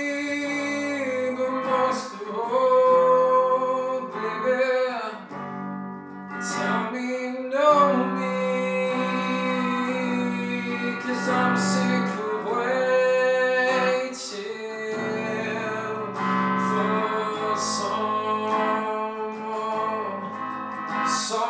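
Ibanez electric guitar played with chords and picked notes, slightly out of tune, with a man singing along in between.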